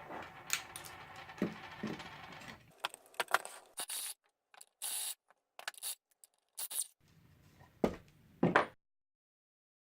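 Workshop handling sounds: light scraping, then a run of short metallic clicks and clinks, and two sharp knocks near the end before the sound cuts off abruptly.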